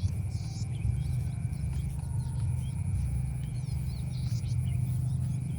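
Outdoor rural ambience: a steady low rumble with scattered short high bird-like chirps.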